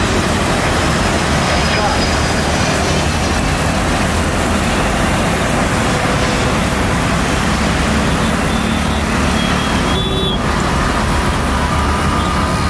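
Loud, steady engine and traffic noise, with voices faintly in the background.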